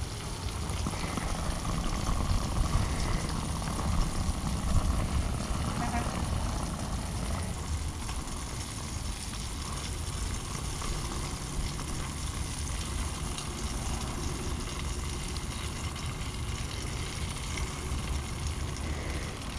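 Catfish fillets deep-frying in hot oil, a steady sizzle, over a fluctuating low rumble of wind on the microphone.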